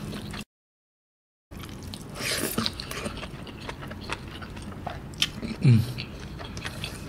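Close-up wet chewing of rice and mushrooms in coconut-milk gravy, full of small squelches and mouth clicks; the mushrooms soak up the gravy and release it when bitten. The sound cuts out completely for about a second, half a second in, and a short low hum of the voice comes near the end.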